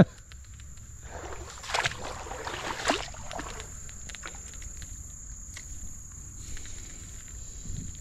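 Water splashing and sloshing in a shallow creek for a couple of seconds, starting about a second in, with a sharp click at the very start. A steady high cricket trill runs underneath.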